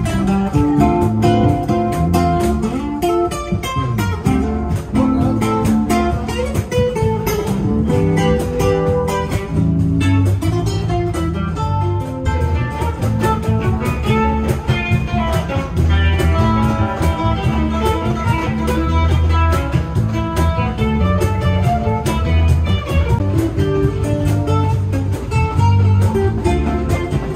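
Guitar music: an acoustic guitar playing a lively tune over an electric bass guitar.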